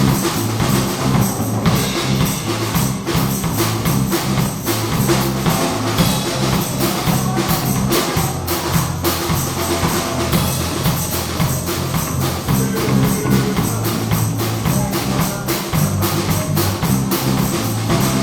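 Live gospel church band playing with a steady drum-and-percussion beat over a bass line that steps from note to note.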